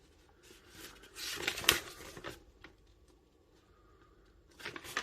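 Packaging being handled: rustling and crinkling, with a sharp tap or click partway through and more brief rustling near the end.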